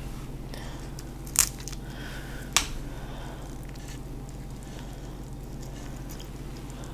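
Boiled shrimp being peeled by hand: the shell cracks sharply twice, about a second and a half in and again a second later.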